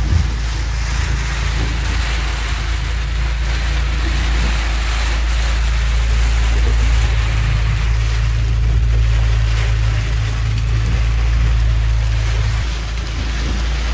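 Wind and heavy rain of a night storm beating on a small boat's pilothouse, a loud, steady rushing and rumbling, with a low hum underneath that drops away near the end.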